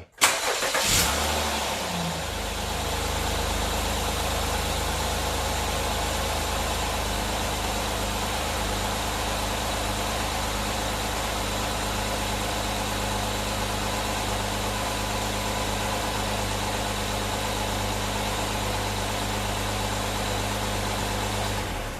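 A 2017 Honda Accord's engine starting right away, flaring up briefly over the first couple of seconds, then idling steadily. It starts without trouble, getting full power now that a lead shim on the worn battery top post gives the terminal a tight fit.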